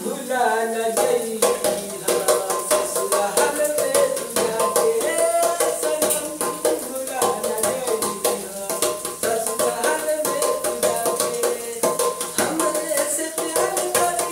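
A man singing while he plays a large lidded metal container as a drum with his bare hands, a quick run of hand strikes on the lid under the sung melody.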